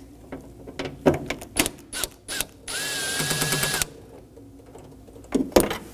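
A power driver runs for about a second with a steady whine, backing out a T30 Torx screw from a car door's handle mount. Metallic clicks of the tool and the screw come before and after.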